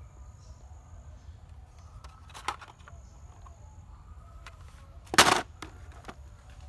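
A plastic toy police car dropped into a plastic bucket, landing with one loud, short clatter about five seconds in; a lighter click comes about two and a half seconds in.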